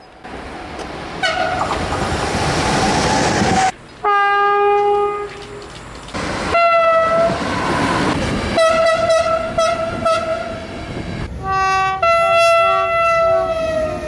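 Several different train horns in quick succession, from clips cut one after another: about six blasts, some single long tones and some two-tone or in short sequences. Under them run the rumble and wheel clatter of passing trains, and the sound changes abruptly at each cut.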